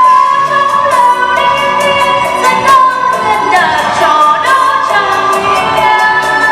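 Voices singing a Vietnamese song over backing music with a steady beat, the sung notes held and sliding between pitches.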